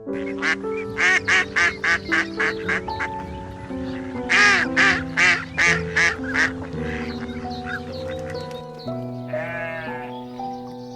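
A duck quacking in a rapid series of short calls, loudest about halfway through, over steady background music. Near the end comes a single drawn-out quavering bleat.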